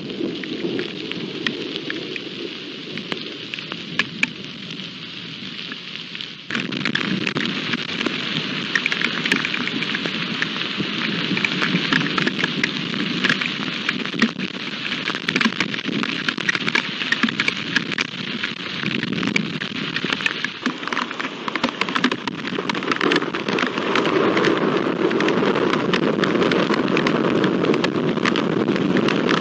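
Heavy rain pouring down in a storm, with many sharp taps of drops striking close by. The downpour jumps suddenly louder about six seconds in and grows heavier again near the end.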